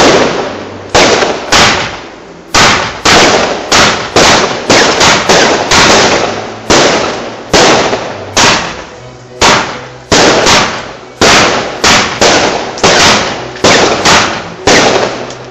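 A finale board of consumer firework batteries firing: a rapid, loud string of aerial shells bursting, about two bangs a second, each with a short decaying tail.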